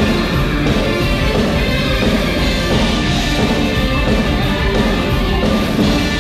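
Loud music for a stage dance number, playing steadily without a break.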